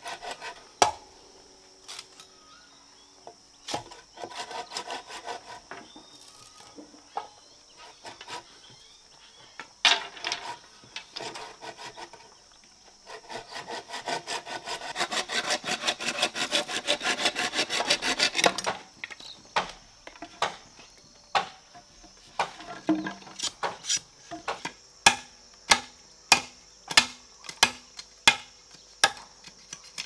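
Machete working a green bamboo pole: scattered sharp knocks, then a long run of rapid scraping strokes along the bamboo, followed near the end by sharp knocks about two a second.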